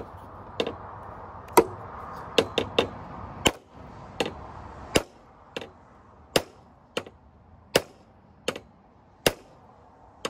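A steel automotive hammer repeatedly striking the lawnmower's bent output shaft to straighten it after the blade hit a rock. There are about fifteen sharp, ringing metal blows, roughly one every three-quarters of a second.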